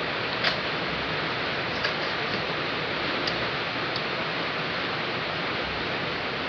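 Heavy rain falling in a steady hiss, with a few short sharp clicks in the first four seconds.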